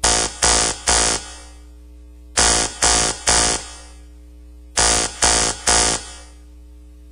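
Live experimental rock band playing loud noisy stabs in groups of three, the three hits about half a second apart and each group coming back about every two and a half seconds. A steady low electronic hum holds between the groups.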